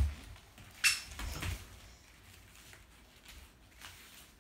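Soft thumps of a toddler and a young Boston terrier puppy moving about on a foam-mat floor, with a short sharp high-pitched sound about a second in, then a quiet room.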